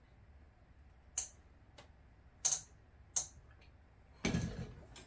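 Sharp metallic clicks from handling the clamp and monopod hardware, three clear ones spaced about a second apart, then a louder knock with a brief rattle near the end.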